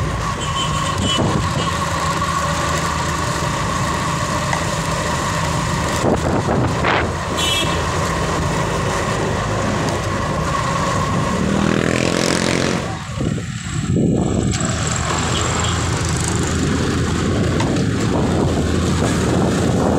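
Motorcycle running while being ridden, a steady engine hum with a brief rise in pitch about twelve seconds in.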